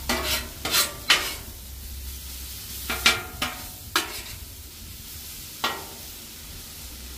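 Metal spatula scraping and clacking on a Blackstone flat-top griddle as it turns sizzling ground meat, in a series of sharp strokes bunched in the first second and again around three to four seconds in.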